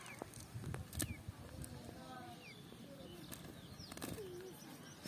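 Small birds chirping in the background, short falling chirps about once a second. A few sharp clicks and soft rustling come from a cast net being handled as fish are picked out of it.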